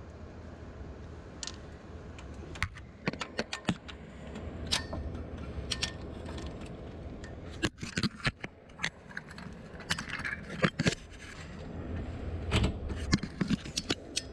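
Socket wrench working a cylinder head bolt: scattered sharp metallic clicks and clinks of the wrench, socket and extension, some in quick runs of several clicks, as the bolt is turned to a set angle.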